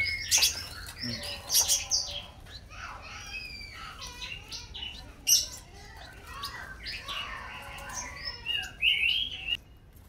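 A cage full of spiderhunters (pijantung) chirping: many short, sharp calls and quick sliding notes overlapping, with louder single chirps every second or two.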